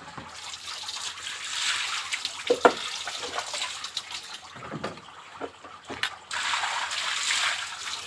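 Water running and splashing on a wet concrete floor in spells, with a few short knocks from handling, and a quieter stretch just past the middle.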